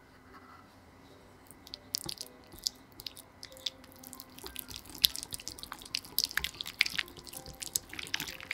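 Wire whisk beating softened cream cheese in a glass bowl: quick, irregular clicks and taps of the wires against the glass with soft squishing. It starts about two seconds in and grows busier toward the end.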